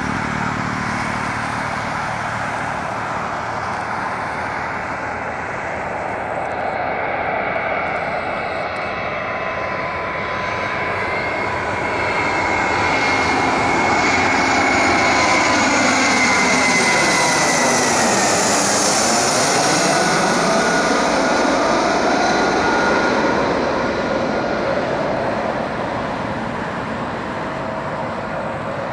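Airbus A320-211 on final approach, gear down, passing overhead: the steady rush and whine of its CFM56 turbofan engines swells to its loudest around the middle, the whine drops in pitch as the jet goes by, and the sound eases as it flies away.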